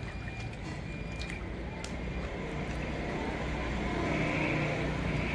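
Water splashing and dripping in a metal basin as unripe green mangoes are scooped out of it by hand into a plastic strainer basket.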